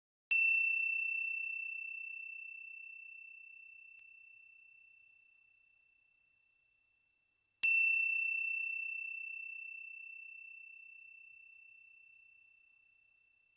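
A small high-pitched bell struck twice, about seven seconds apart. Each strike rings with one clear tone that fades slowly over about five seconds, with a brief bright shimmer at the start.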